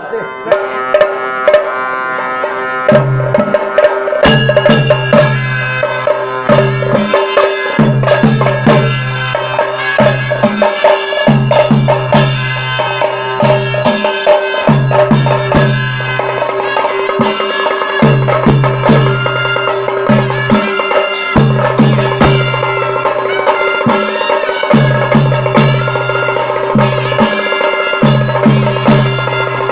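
Chenda drum ensemble playing a fast, steady rhythm over a held pitched tone; the drumming comes in about three to four seconds in.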